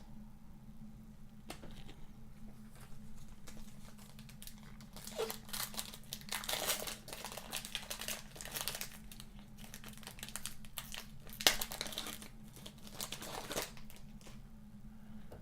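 Foil trading-card pack wrapper crinkling and being torn open by hand, in irregular bursts through the middle, with one sharp click near the end.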